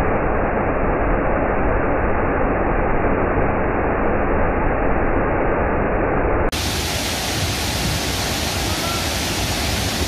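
Steady, loud rush of a large waterfall in heavy flow. About two-thirds of the way through it cuts abruptly to a brighter, slightly quieter rush of water tumbling through rocky rapids.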